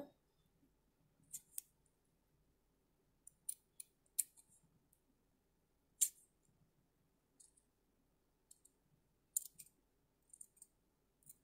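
Small scissors snipping through felt: about a dozen short, sharp snips at irregular intervals as a small piece is cut out, with near-quiet gaps between.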